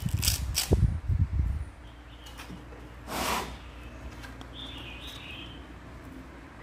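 Sandpaper discs being handled and pressed onto the hook-and-loop pad of a small homemade disc sander: knocks and rustling in the first second and a half, then a short scratchy rasp about three seconds in. Birds chirp faintly in the background.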